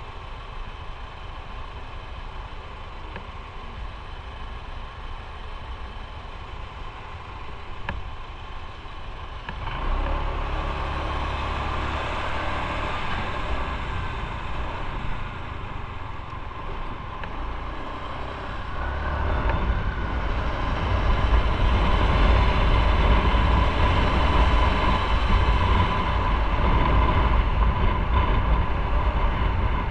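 Motorcycle on the move: engine and rushing wind noise on the camera microphone. It is fairly quiet at first, then gets louder in two steps, about ten seconds in and again about nineteen seconds in.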